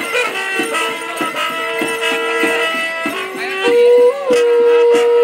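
Mapuche cullcull, animal-horn trumpets, blown in held notes, with one long, loud blast starting about two-thirds of the way in. Under them a kultrun drum beats steadily, about three strokes a second.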